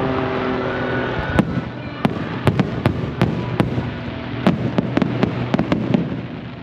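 Aerial fireworks show: a string of sharp, irregularly spaced bangs from shells bursting, over a dense crackle and rumble, fading near the end.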